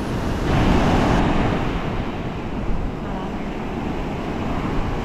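Rough ocean surf breaking and washing up the beach, with wind buffeting the microphone. The wash swells louder about half a second in, then settles.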